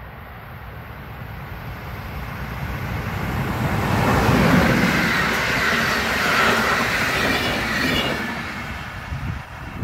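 PESA SU160 diesel locomotive hauling an InterCity passenger train past at speed. Engine and wheel-on-rail noise build as it approaches and peak as the locomotive goes by about four seconds in. The coaches run past loudly, then the sound fades near the end.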